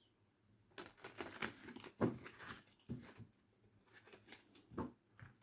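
Faint rustling and light tapping of tarot cards being handled: a run of irregular soft clicks and rustles that begins about a second in.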